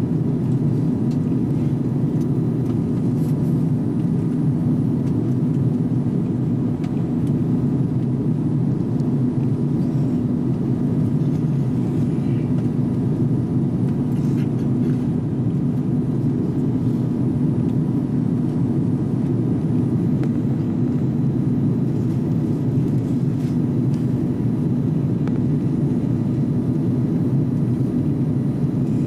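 Steady airliner cabin noise during descent: the low rumble of engines and airflow over the fuselage, unchanging, with a faint steady hum in it.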